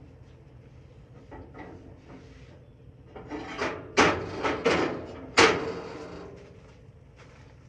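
A cast iron skillet and the gas grill's grates clanking and scraping as they are handled: a run of sharp metallic knocks, loudest about four and five and a half seconds in.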